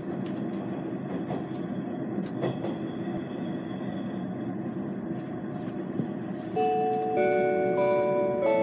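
Steady hum and rumble inside a train carriage, then, about six and a half seconds in, the on-board chime starts, playing a short melody of clear electronic notes over the car's speakers. The chime signals that a train announcement is about to follow.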